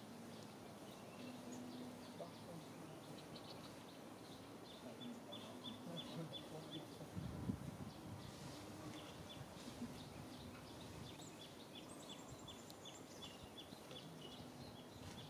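Quiet outdoor ambience with a faint steady background and a long run of short high chirps repeated evenly, about two to three a second. A short higher call drops in pitch about twelve seconds in. A brief low rustle comes about seven seconds in.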